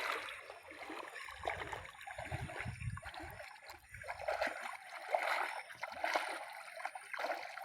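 Water splashing and sloshing in an irregular rhythm as a person swims. Low rumbling thumps come between about one and four and a half seconds in.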